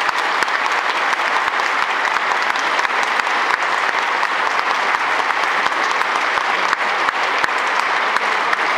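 A small group of people applauding, dense steady hand-clapping.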